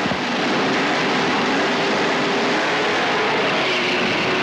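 A full grid of touring cars' engines revving together on the start line, many engines at once held at high, fairly steady revs while waiting for the flag to drop.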